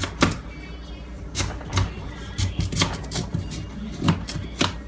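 Paring knife cutting through raw sweet potato and knocking down onto a cutting board: a series of sharp, irregular chopping knocks.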